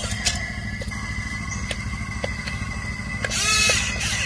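Small electric gear motors of a toy RC excavator whirring as the boom lowers and the bucket curls, with a few clicks of the plastic gearing. Near the end the motor whine briefly gets louder, rising then falling in pitch.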